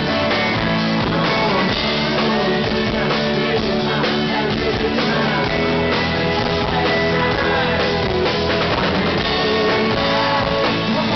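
Live rock band playing: a man singing over strummed acoustic guitar and a drum kit, with a saxophone playing along.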